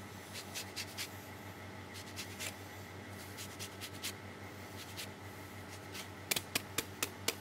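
An orange being zested on a fine rasp grater: repeated short scratchy strokes of the peel across the metal, with a few sharper clicks near the end.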